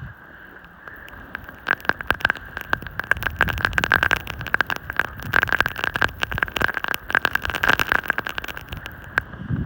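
Snowboard sliding over snow: rough scraping with a dense, rapid crackle of clicks that starts about two seconds in and stops shortly before the end.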